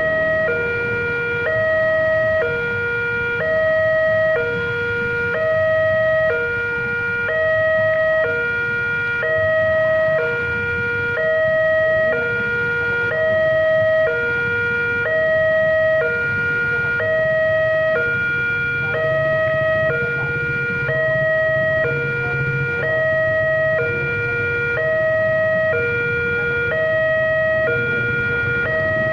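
Railway level-crossing warning alarm sounding: an electronic two-tone signal that alternates steadily between a higher and a lower tone, the sign that the crossing is closed for an approaching train. Low rumble of motorcycle engines idling underneath.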